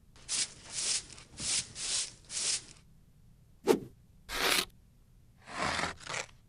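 Makeup brush strokes, scratchy and close: a run of five quick brushing strokes, about two a second, then a sharp click, then two longer sweeps of the brush across eyeshadow and eyelid.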